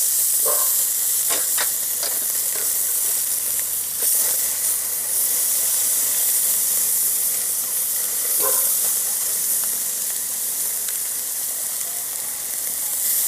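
Bone-in ribeye steaks sizzling on a hot grill grate just after being turned over, searing with a steady hiss. A few light clicks and knocks come through the sizzle.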